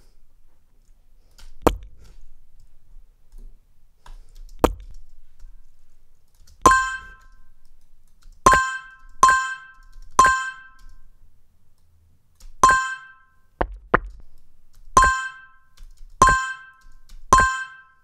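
A short bell-like synthesized notification ding, played over and over, about eight times at uneven gaps, each with a sharp click at its start and a brief ring. Two bare sharp clicks come before the dings.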